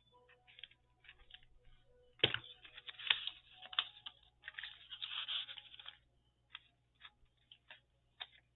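Paper and craft materials handled on a desk: a sharp tap about two seconds in, then a few seconds of crinkling and rustling, with light ticks and taps before and after.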